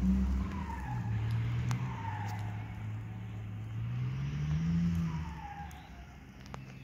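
Nissan Patrol GR engine working off-road: the revs drop about a second in, climb again around four to five seconds, then fade away, with a thin falling whine over the engine note.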